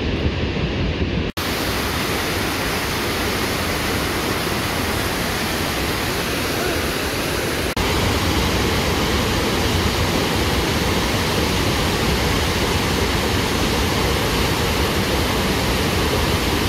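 Loud, steady rushing of a waterfall and whitewater cascade, with no tone or rhythm in it. It breaks off sharply about a second in and again a little before halfway, and is slightly louder after the second break.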